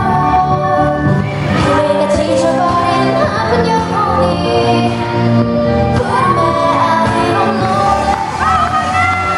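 Pop song with female singing over a steady beat.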